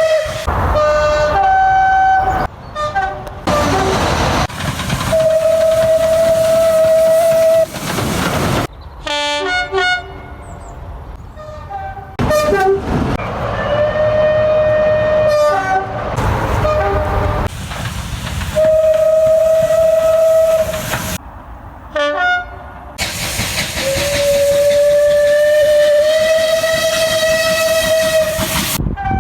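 A rapid succession of short clips of trains sounding their horns, cut abruptly one into the next. There are short two-tone high-low blasts and several long held single-note blasts, the longest near the end, over the rumble of passing trains.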